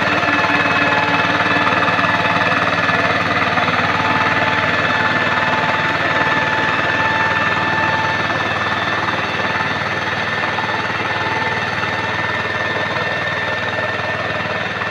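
Single-cylinder diesel engine of a walking tractor (power tiller) running steadily under load as it drags a leveling board through a flooded paddy, with a fast chugging beat and a steady high whine over it. It grows a little fainter in the second half as the tractor moves off.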